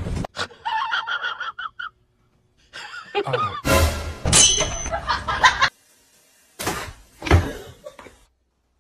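Short snatches of music and laughter that cut off abruptly, with brief silences between them.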